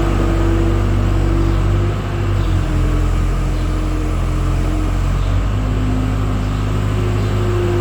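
Engine of a farm machine scraping manure out of a cow shed, running steadily, its pitch shifting slightly about two seconds in and again a little past five seconds.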